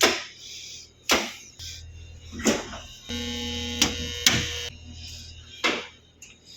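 Switches on a control panel being flicked, about six sharp clicks roughly a second apart, over a low electrical hum. An electrical buzz with several steady pitches sounds for about a second and a half midway.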